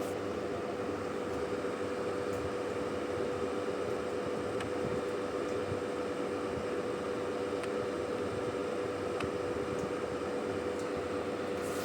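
Steady machine hum with a constant whine and an even hiss behind it.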